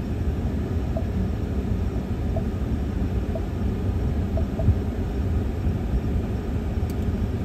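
Steady low rumble inside the cab of a vehicle whose 3.5 EcoBoost twin-turbo V6 is running, with the climate fans set on high. A few faint short beeps sound about a second apart as the touchscreen climate controls are pressed.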